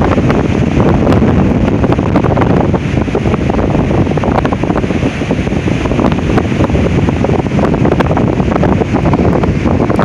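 Strong windstorm gusts blasting across the microphone: a loud, constant rumble with crackling buffets.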